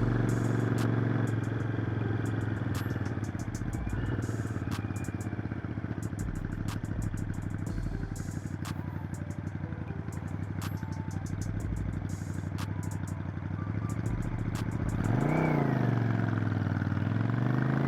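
Motorcycle engine running on the move, its note steady and then quieter for a stretch. About fifteen seconds in the revs climb, fall back and climb again, as the bike accelerates through a gear change.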